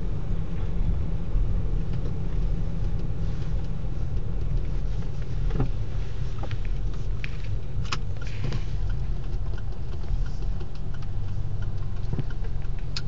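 Steady low rumble of a car's engine and tyres heard from inside the cabin while driving up through a multi-storey car park, with a few short clicks about halfway through.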